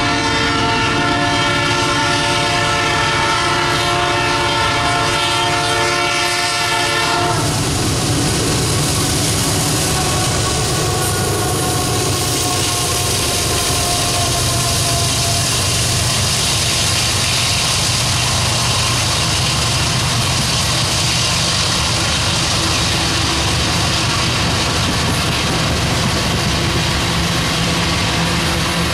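Diesel locomotive air horn held in one long blast for about seven seconds, then it stops. A loaded coal train's GE locomotives pass at speed, followed by loaded coal hoppers rolling by with steady wheel noise on the rails.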